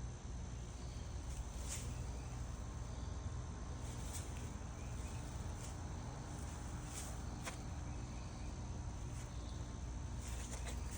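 Propane gas heater burning with a steady low rushing noise, a few faint clicks scattered through it.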